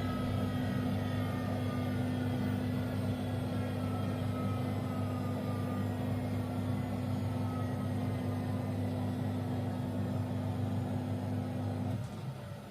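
Miele washing machine running: a steady motor hum with a higher whine that slowly falls in pitch. The hum cuts off suddenly near the end.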